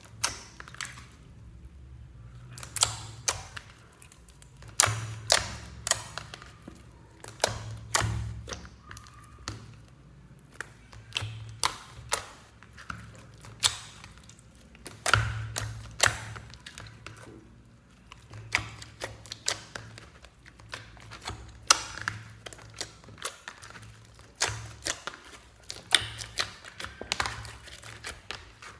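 Slime being squished and kneaded by hand, making irregular sticky clicks and pops several times a second, with soft thuds.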